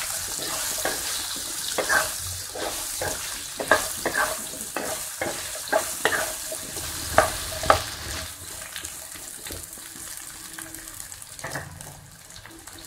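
Raw banana slices sizzling in hot oil in a kadai while a wooden spatula stirs them, scraping and knocking against the pan many times. The stirring eases off after about eight seconds and the sizzle carries on more quietly.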